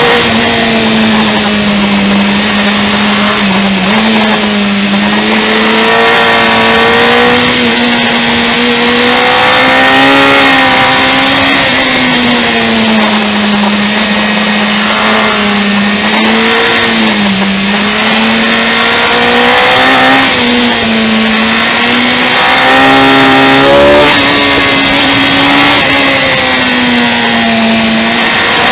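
Motorcycle engine under way, its note rising and falling again and again as the throttle is opened and closed, over a steady rush of wind noise.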